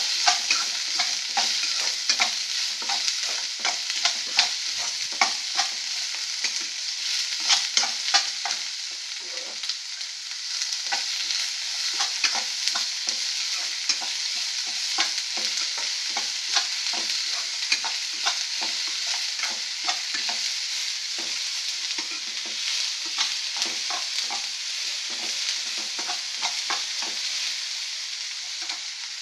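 Chopped small onions and green chilli sizzling in hot sesame oil in a kadai, with a steady frying hiss and frequent scraping and tapping as a utensil stirs them against the pan.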